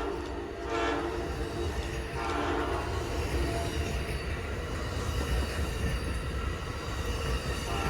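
Amtrak California Zephyr passenger train at a grade crossing: a horn blast ends just after the start, two shorter blasts follow about one and two and a half seconds in, then the train runs past with a steady low rumble.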